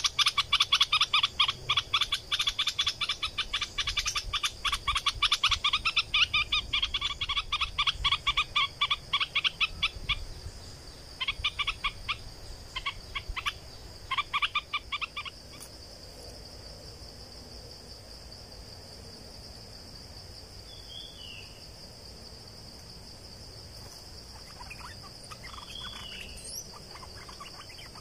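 Stripe-throated bulbul chattering in fast runs of rapid repeated notes, loud for about the first ten seconds, then in shorter bursts that stop about halfway through, leaving only a few scattered calls. A steady high-pitched buzz runs underneath.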